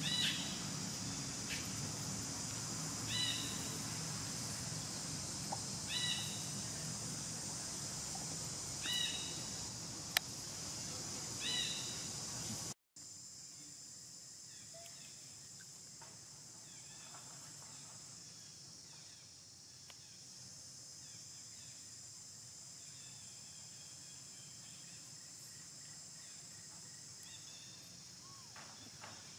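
Steady high-pitched drone of insects, with a short call repeating about every three seconds through the first half. About halfway through the sound cuts out for an instant and comes back quieter, the insects fainter.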